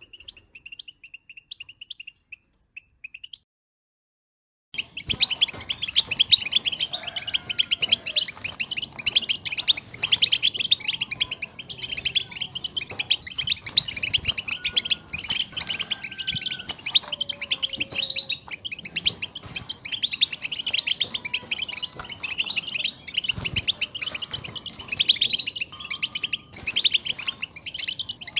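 European goldfinch twittering: a few short call notes, a brief pause, then from about five seconds in a dense, fast chatter that keeps going.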